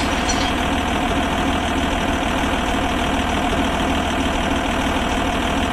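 Tractor engine sound effect idling steadily, laid over toy-tractor footage.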